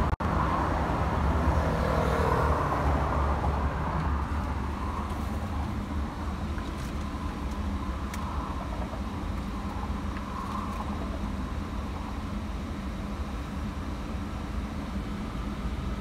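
Steady low rumble of car engine and road noise heard inside a car's cabin in slow traffic, a little louder in the first few seconds.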